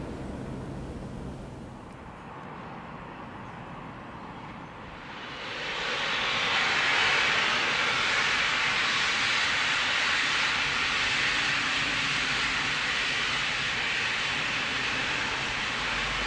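Steam locomotive 34092 City of Wells, a Bulleid West Country class light pacific, letting off steam: a loud, steady hiss that swells in about five seconds in and holds.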